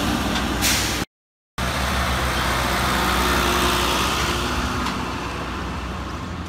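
Farm tractor towing a two-axle trailer past, its engine running steadily under road noise and slowly fading as it moves away. The sound drops out completely for about half a second about a second in.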